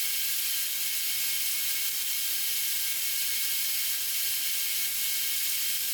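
A steady hiss, strongest high in pitch, with a few faint steady tones under it.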